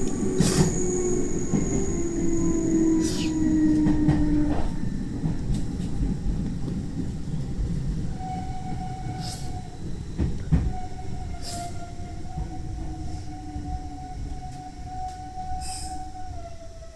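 Electric train heard from inside the carriage as it slows for a station. A whine falls in pitch over the first few seconds over the rumble of the wheels. Later a steady high squeal sets in and drops a step near the end, with a few sharp clicks, while the overall noise fades as the train decelerates.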